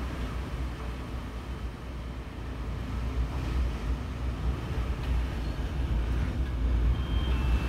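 Typhoon wind blowing hard, buffeting the microphone with a heavy rumble that surges and eases over a steady rushing noise.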